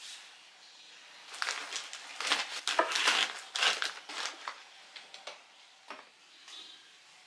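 Plastic snack packets crinkling and rustling as they are pushed into a bread box, then a few light clicks as its slatted door is slid shut.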